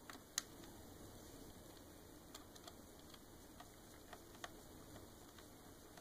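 Small screwdriver turning screws into a Roomba 550's plastic brush gearbox housing: faint scattered clicks and ticks, the sharpest about half a second in, over quiet room tone.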